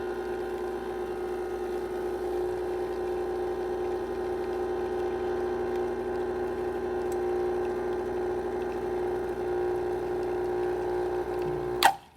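Pasquini Livietta espresso machine's pump humming steadily as it pulls a shot, struggling a little to push water through a fine grind. It is switched off with a sharp click near the end.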